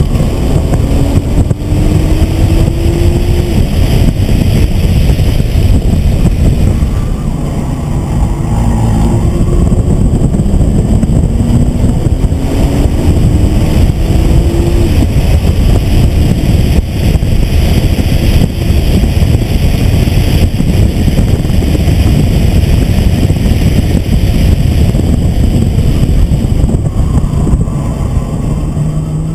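Nissan GT-R's twin-turbo V6 heard from inside the cabin on track, accelerating hard through the gears: the engine note climbs, drops at each upshift and climbs again, several times. Heavy road and tyre noise runs underneath.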